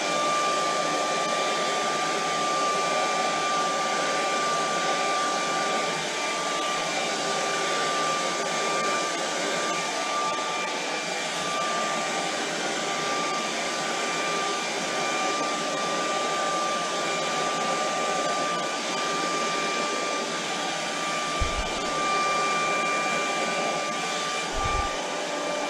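Small handheld hair dryer running steadily, with a constant high whine over its rushing air, blowing wet acrylic paint across a canvas to move and spread it.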